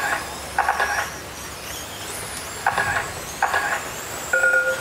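Radio-controlled race cars running laps on a dirt oval, their motors giving faint high whines that glide up and down in pitch. Short pitched beeps repeat about every second, with a longer held beep near the end.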